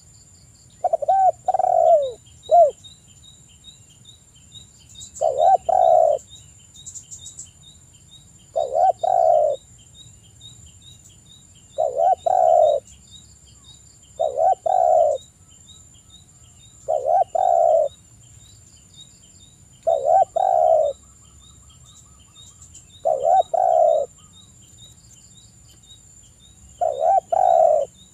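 Spotted dove (tekukur) cooing, a low phrase of two or three notes about every three seconds, nine times. Behind it run a faint steady high-pitched hum and quick faint high chirps.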